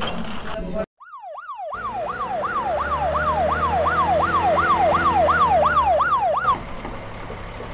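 Police siren sound effect in a rapid yelp, sweeping up and down about three times a second. It starts after a brief gap about a second in and cuts off abruptly near the end.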